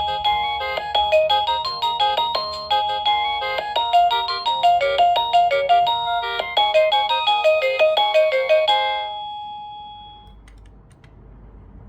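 Doorbell chime speaker playing one of its electronic melody tunes: a quick run of beeping notes that ends about nine seconds in on a held note that fades out.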